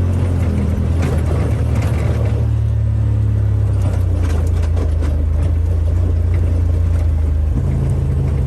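Off-road vehicle's engine running steadily while driving, its pitch stepping up near the end as it revs.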